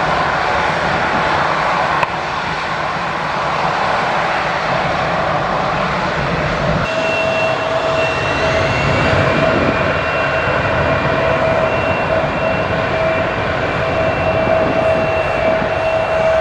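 Jet airliner engines running, a loud steady rushing noise. About seven seconds in the sound changes abruptly to a different aircraft, with a steady high engine whine of two tones over the noise.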